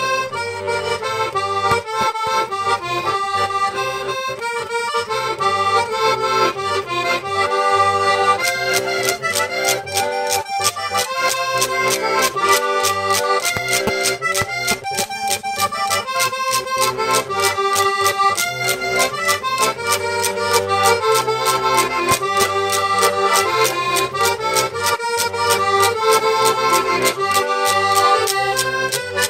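Two Circassian pshine diatonic button accordions playing a folk tune together. Wooden pkhachich clappers join about eight seconds in, clacking a steady beat under the melody.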